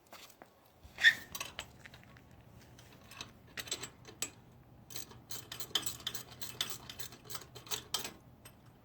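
A pair of 1/2-inch wrenches clinking and clicking against steel nuts and bolts as they are tightened down on a stainless steel bracket. There is one sharp clink about a second in, then a quick, irregular run of metal clicks through the second half.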